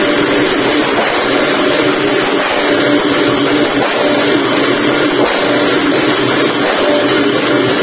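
Thai klong yao long-drum ensemble playing: long drums beaten by hand together with clashing brass cymbals, loud and continuous.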